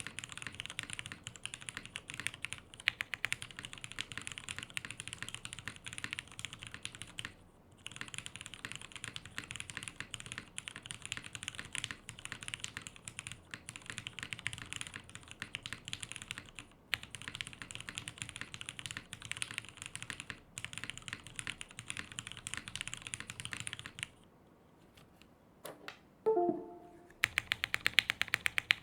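Fast typing on a Matrix 2.0 Additional keyboard with lubed Cherry MX Vintage Black linear switches on a top-mounted aluminum plate and CRP R4 keycaps: a steady clatter of keystrokes, with a short break about seven seconds in and a longer gap near the end. A brief pitched sound comes in that gap, then a quick, even run of louder key clicks.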